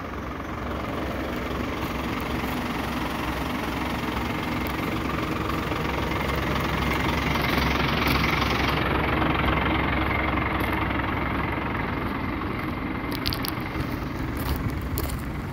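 Dump truck's diesel engine running steadily at idle, a little louder about halfway through as the truck is close by. A few light clicks near the end.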